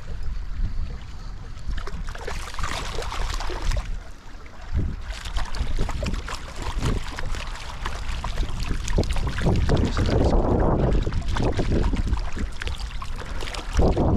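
Strong gusty wind buffeting an action camera's microphone in a deep, uneven rumble, over the rush of stream water, with scattered short clicks and knocks of handling.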